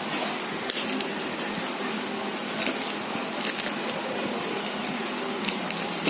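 Handling noise from the massager's packaging being opened: rustling with scattered sharp clicks over a steady hiss.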